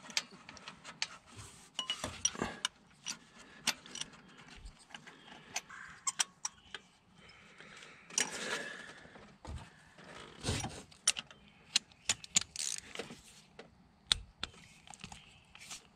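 Scattered metal clicks and taps of a spark plug socket, extension and ratchet against the engine as a new spark plug is threaded in and tightened, with a few brief rustles of hands working in the engine bay.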